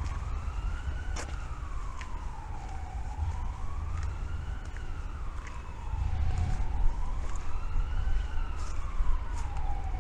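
A siren wailing, its pitch sliding slowly up and down about every three and a half seconds, over a steady low rumble.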